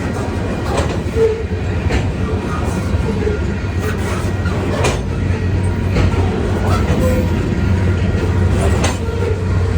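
Train rolling past, with a steady low rumble and the wheels clicking over rail joints every second or so, plus brief faint squeals.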